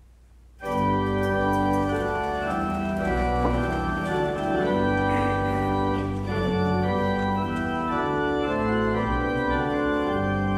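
Church pipe organ starting suddenly about half a second in, then playing loud sustained chords that change every second or so over a steady bass.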